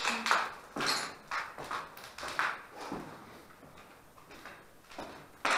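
Footsteps crunching and scraping over a littered floor: irregular steps about two a second for the first three seconds, fainter for a while, then a sharp one near the end.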